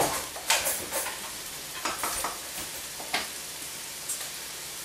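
A metal utensil scraping and clinking in a stainless steel mixing bowl as pasta is tossed and served: several irregular scrapes, loudest in the first second or so, thinning out toward the end. A steady sizzle from a pan on the stove runs underneath.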